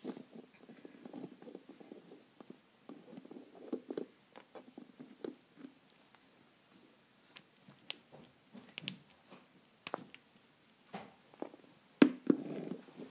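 Plastic Schleich horse and rider figurines being handled close to the microphone: scattered small clicks, taps and rustles of fingers on plastic, with one louder knock near the end.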